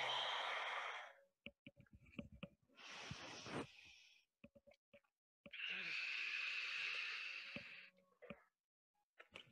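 A woman's long, audible breaths during yoga, three in all, the first and last loudest, with soft knocks and taps of hands and feet on a yoga mat between them.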